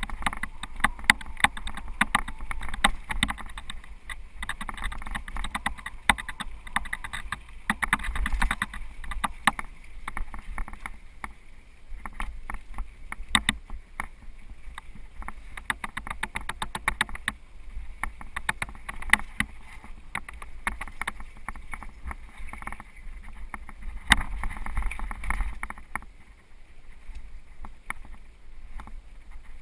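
Mountain bike rattling and clattering as it rides over a bumpy, leaf-strewn dirt trail, with dense irregular knocks and a constant low wind rumble on the mounted camera's microphone.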